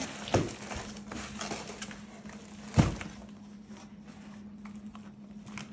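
A cardboard bed-frame box and the parts packed inside it being handled: scattered knocks and rustling, with one loud thump a little under three seconds in, over a faint steady hum.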